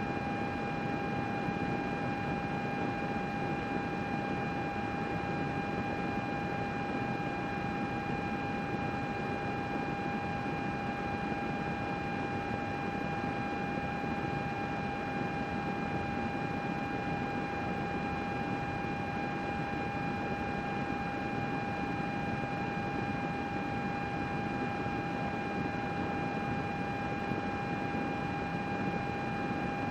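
Computer cooling fans running steadily: an even whoosh of moving air with a constant high-pitched whine over it.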